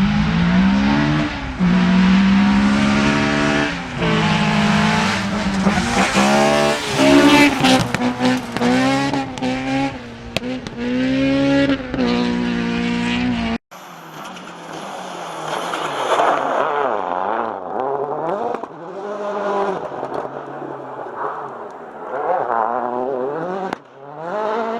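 Rally car engines revving hard, the pitch climbing and dropping again and again through gear changes. About 13.5 seconds in the sound cuts abruptly to another car, quieter and further off, still revving up and down.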